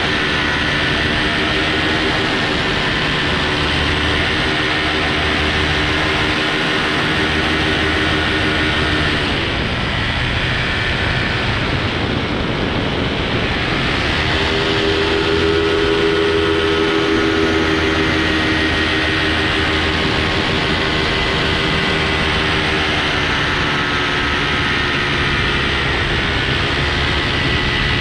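Propeller engines running steadily in flight, a constant motor hum with several held tones. Between about nine and fourteen seconds in, the tones break up into a rushing noise, then come back steady at a slightly different pitch.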